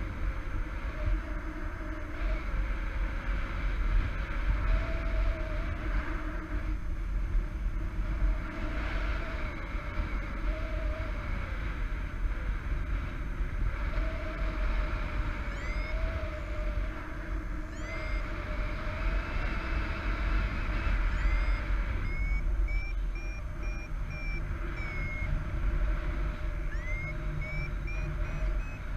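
Wind buffeting the camera microphone in paraglider flight, with a low wavering hum through the first half. From a little past halfway a paragliding variometer beeps in short high beeps that glide up in pitch and repeat faster near the end, signalling a climb in a thermal.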